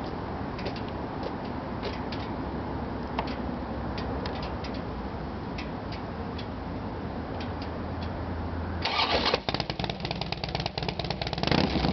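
A 2009 Harley-Davidson Heritage Softail Classic's Twin Cam 96 V-twin, fitted with Vance & Hines True Duals fishtail exhaust, cranks and fires up about nine seconds in, then runs pretty loud, swelling again briefly near the end. Before the start there are only faint clicks over a low background.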